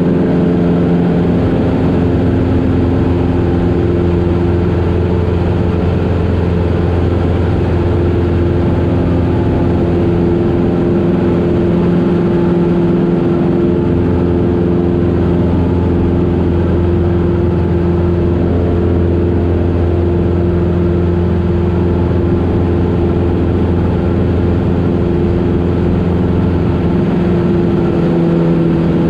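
Cessna Super 175's piston engine and propeller droning steadily in flight, heard from inside the cockpit.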